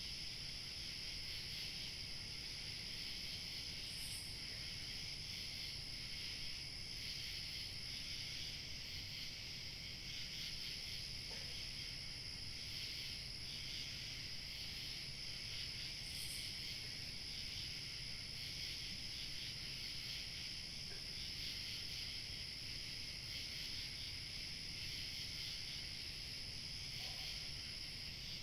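Chorus of crickets chirping steadily, with a thin, higher steady tone above them and a faint low rush of light wind.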